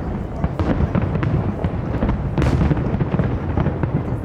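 Fireworks going off in rapid succession: many sharp cracks and bangs over a continuous low rumble of booms, with a louder cluster of cracks about two and a half seconds in.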